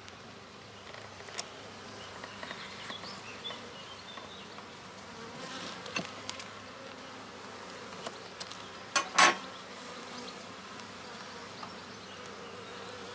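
Honey bees of a small swarm colony buzzing steadily around an opened hive, with a couple of sharp knocks about nine seconds in.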